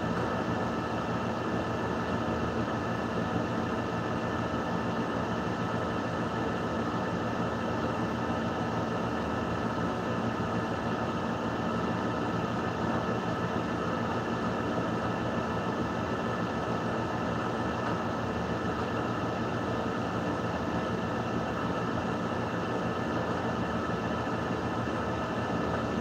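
A steady mechanical hum and hiss with a few faint held whining tones, unchanging throughout.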